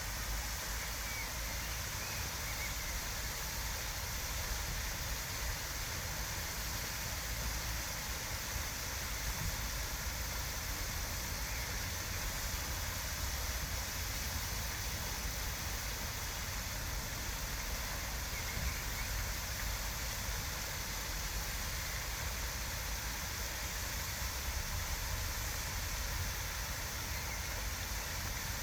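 Steady rushing outdoor ambience with a deep rumble underneath, and a couple of faint bird chirps.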